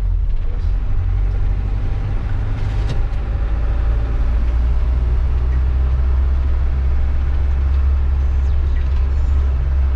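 Converted-bus motorhome driving along a road: a steady low engine and road rumble.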